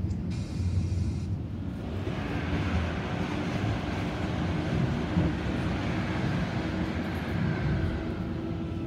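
Suburban electric train running, heard from inside the carriage: a steady rumble of wheels on rail with a low motor hum. A brief high hiss sounds about half a second in, and from about two seconds in, the noise swells as another electric train passes on the next track.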